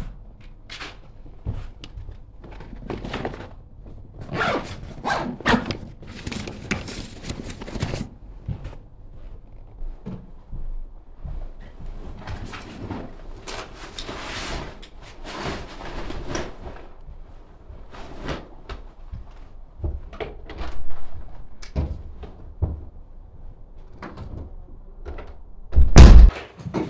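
A run of short knocks, clatters and handling sounds, like doors, drawers or cupboards being worked, with one loud heavy thump near the end.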